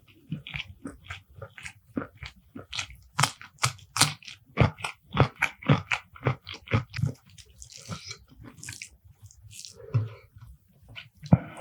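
Close-miked chewing of a mouthful of food with crisp, sharp crunches. The crunches come thickest in the middle, two or three a second, then ease into softer, wetter chewing.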